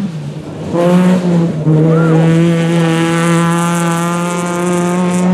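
Rally car's engine at high revs on a gravel stage, coming in hard about a second in, dipping briefly for a gear change, then held at a steady high pitch, with a hiss of gravel under the tyres.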